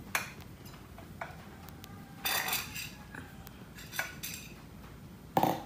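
Tableware clinking: a metal spoon knocking against a plate five or so times, sharp clinks with a short ring, the loudest near the end.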